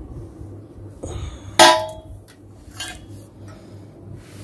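Sharp metallic clang with a brief ring about one and a half seconds in, as a motorcycle exhaust muffler is knocked while being handled, followed by a softer knock about a second later.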